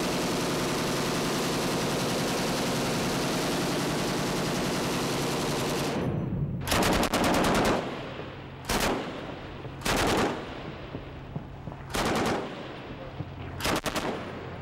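Belt-fed machine gun firing full-auto: a long continuous burst of about six seconds, then five short bursts one to two seconds apart.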